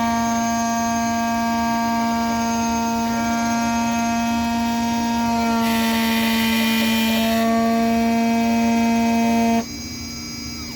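Xhorse key cutting machine's cutter spindle running with a steady whine, with a rasping hiss in the middle as the cutter bites into the key blank. The machine stops abruptly near the end.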